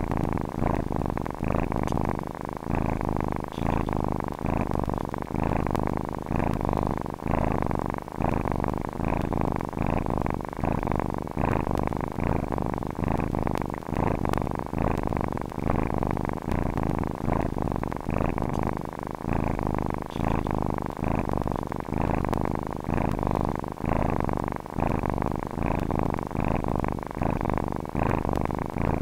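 Domestic cat purring steadily, the purr swelling and fading in a regular rhythm.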